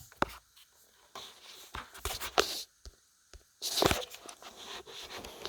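Clicks and handling rustles from an RCA CC6363 VHS-C camcorder being worked by hand: a sharp click just after the start, a cluster of clicks and rustles around two seconds in, and a louder rustling burst near four seconds.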